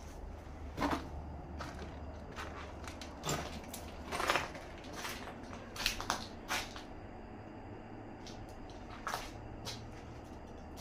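Irregular scuffs and crunches from someone moving about on a debris-strewn concrete floor, about seven short noises, the longest about four seconds in.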